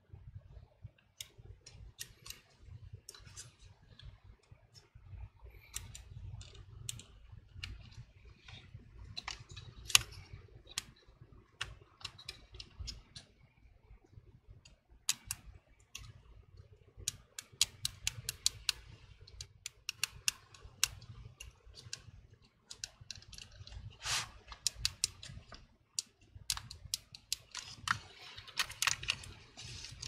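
Irregular small clicks and taps of fingers handling a laptop's power button board and plastic button inside the open chassis, working to push a broken-off switch back into place. The clicks come thicker in the second half.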